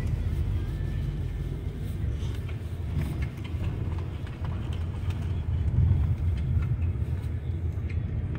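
Steady low rumble of an intercity coach bus in motion, engine and road noise heard from inside the passenger cabin.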